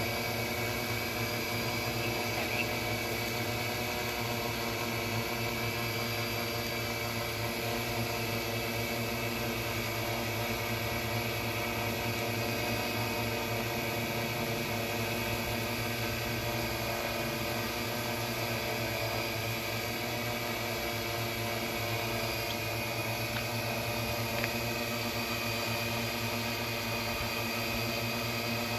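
Multirotor drone hovering close by: its motors and propellers give a steady buzzing hum made of many even tones, holding pitch throughout.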